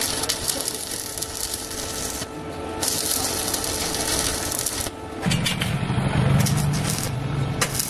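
Stick (arc) welding on steel angle iron: the electrode arc crackles and sizzles in two runs with a short break about two seconds in. A lower, duller noise follows for the last couple of seconds.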